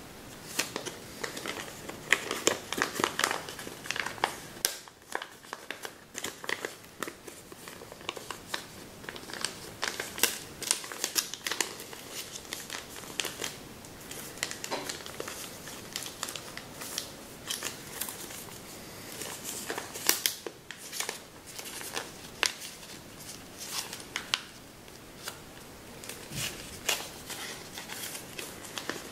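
Sheet of Kami origami paper crinkling and rustling as it is folded and creased by hand, with irregular crackles throughout.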